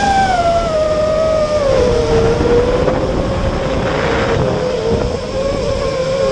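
FPV quadcopter's brushless motors whining in flight. The pitch drops about two seconds in as the throttle eases, holds steady, then climbs a little near the end.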